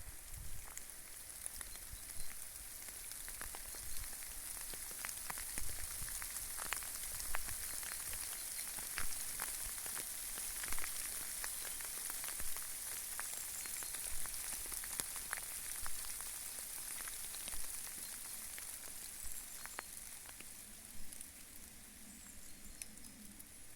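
Hail falling with rain: a steady hiss with frequent sharp ticks of hailstones striking, thinning out near the end.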